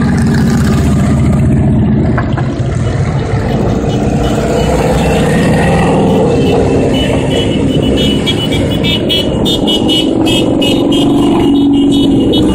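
A stream of motorcycles, touring cruisers and sport bikes, riding past in a steady loud mass of engines, some revving as they go by. Near the end, close-by hand claps join in.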